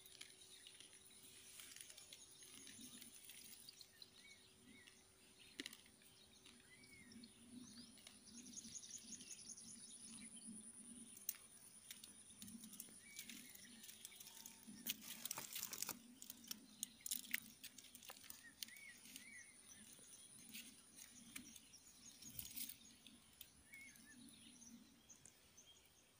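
Faint swamp ambience: small birds chirping now and then over a steady high-pitched drone that stops near the end, with a few soft clicks and rustles close by.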